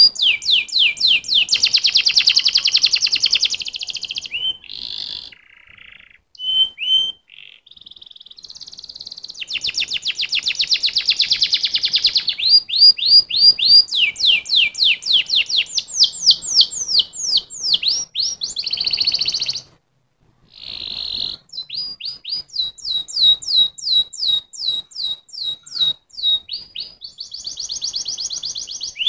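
Domestic canary singing a long, varied song of rapid trills and rolls and runs of quick down-sweeping notes, with two short pauses, one about a quarter of the way in and one about two-thirds through.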